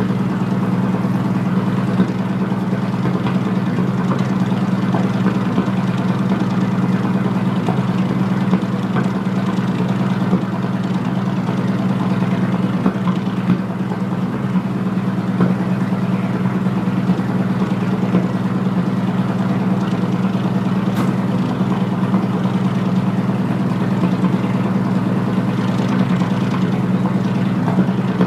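Heavy engine idling steadily, a deep even hum that holds without change throughout.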